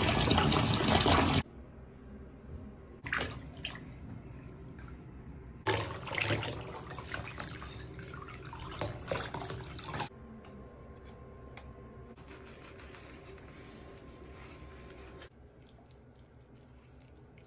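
A bathtub tap gushes into the tub for the first second and a half. After that, water poured from a plastic jug splashes over a cat standing in a shallow bath, loudest for a few seconds around the middle. Quieter splashing and dripping follow.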